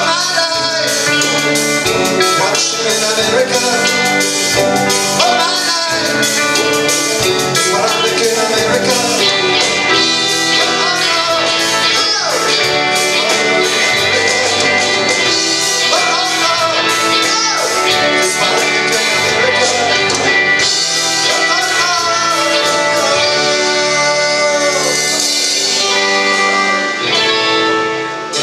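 Live rock band playing: electric guitars over a steady drum kit beat, with a singing voice on top.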